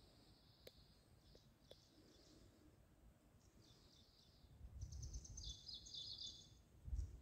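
Faint small birds chirping in quick trills, with a low rumble on the microphone joining in about halfway through.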